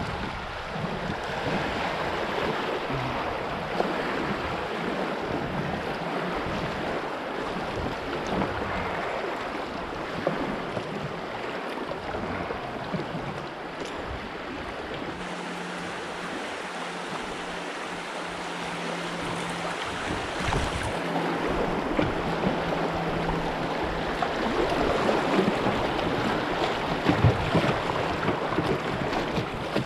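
Steady rush of river water running through small class 1 rapids.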